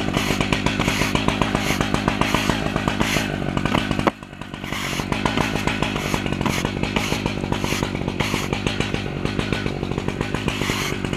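Stihl MS880 two-stroke chainsaw running hard on an Alaskan chainsaw mill, cutting through oak. It runs steadily, with a sudden brief drop in level about four seconds in before it builds back up.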